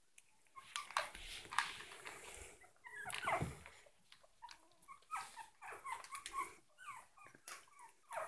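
Yorkshire terrier puppies whimpering in many short, high, wavering squeaks, more of them in the second half. There are a few knocks and scuffles in the first few seconds.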